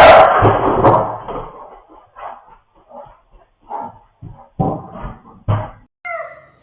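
A loud burst of noise at the start, then a string of short sharp sounds, and a cat meowing once near the end with a falling pitch.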